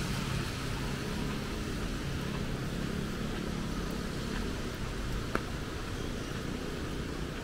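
Street traffic noise: a motor vehicle's engine humming steadily, slowly easing off, with a single sharp click about five seconds in.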